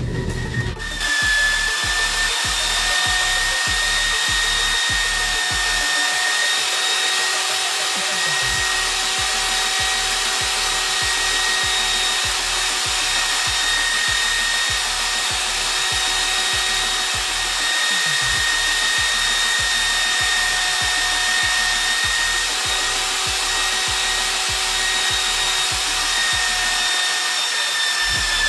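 An electric power tool motor running steadily, a constant hiss with a high, even whine that holds for the whole stretch.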